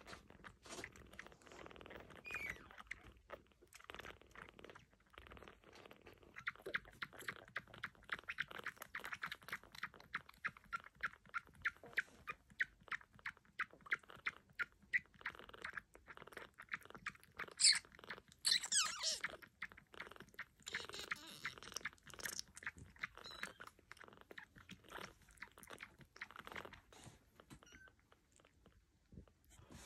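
A baby kitten suckling on a feeding bottle's nipple: a steady run of wet sucking clicks, a few a second, with a few high squeaks about two-thirds of the way through.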